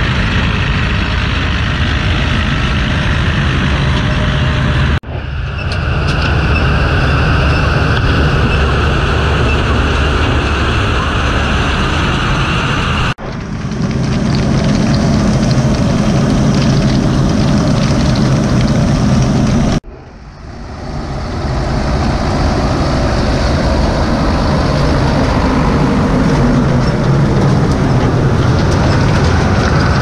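A tractor-drawn potato harvester at work: the John Deere tractor's engine runs steadily under the clattering of the harvester's chain conveyors and rollers carrying potatoes, rocks and dirt. The noise breaks off briefly three times and comes straight back.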